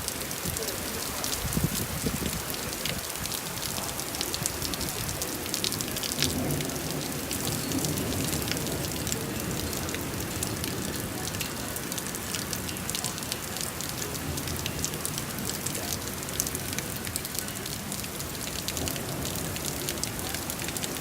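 Steady rain falling, dense with the ticks of many drops striking a hard surface.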